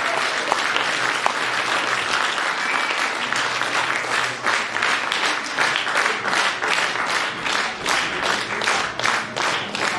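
Audience applause in a hall, a dense clatter of clapping that about four seconds in falls into rhythmic clapping in unison, roughly two to three claps a second.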